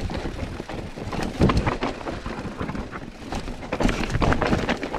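Mountain bike being ridden over a rough trail: wind rushing over the microphone, with a steady run of knocks and rattles from the tyres and bike over rocks and roots.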